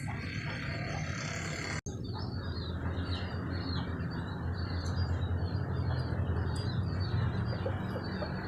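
Small birds chirping in quick, repeated short notes over a steady low rumble of outdoor background noise; the sound drops out for an instant about two seconds in, after which the chirping runs on continuously.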